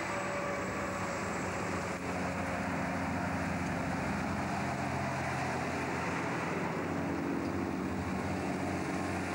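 Diesel engines of loaded logging trucks passing close by one after another, a steady heavy engine drone whose pitch shifts as each truck goes past.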